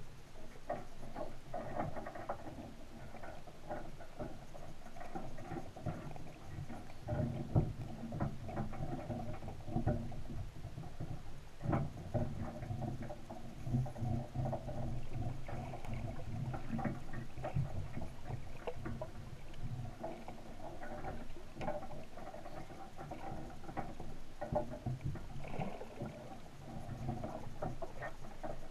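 Underwater ambience picked up by a camera sitting on the seabed: irregular clicking and crackling over a steady low hum.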